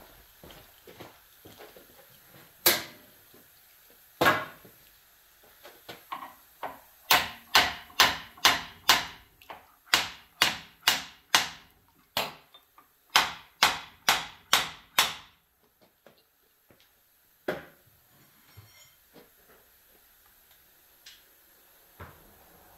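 Hand hammer striking a John Deere hydraulic cylinder, driving the gland back into the barrel to get at the snap ring. Two single blows, then three runs of quick blows about three a second, and a last blow a few seconds before the end.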